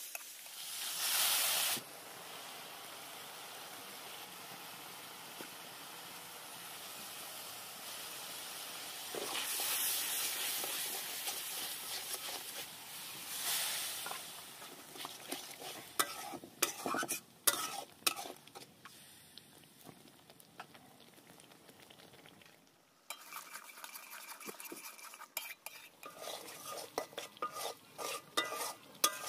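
Spice paste sizzling in hot oil in a steel wok, the sizzle surging loudly a few times. A metal spatula stirs and scrapes the pan, with frequent clinks against the metal in the second half.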